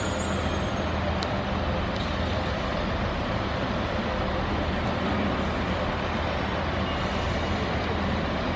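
East Midlands Trains diesel multiple unit's engines running with a steady low drone as the train moves slowly along the platform.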